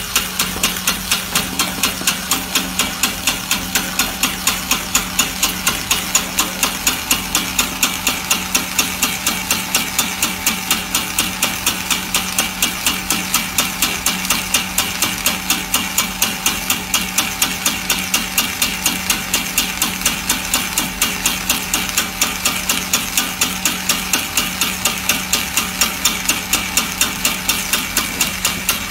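Small puffed-snack extruder running while it makes corn puffs: a rapid, very regular knocking, about five a second, over a steady motor hum.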